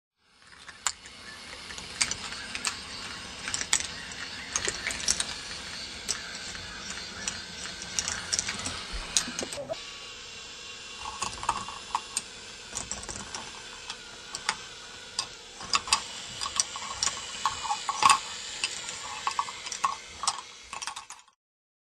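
K'nex ball machine running: a steady mechanical whir with many sharp clicks and clacks as plastic balls are lifted and run down the tracks. It cuts off suddenly near the end.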